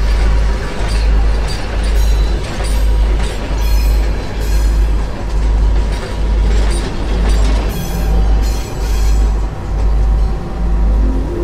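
Dark industrial-style background music: a deep bass pulse repeating a little faster than once a second under a noisy, clanking metallic texture.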